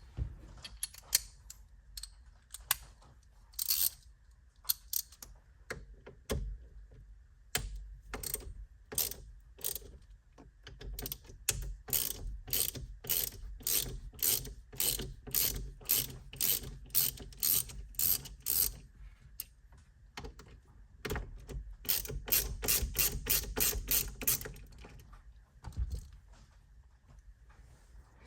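Hand ratchet clicking as it is worked back and forth to back out screws: a long run of evenly spaced clicks, about two a second, then a shorter, quicker run near the end.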